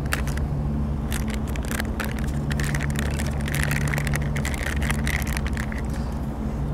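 Plastic vacuum-seal packaging crinkling and crackling as it is opened and handled, with light knocks as the spray applicators and a bottle are set down on a cloth-covered table. Under it runs a steady low hum, like a nearby engine or machinery.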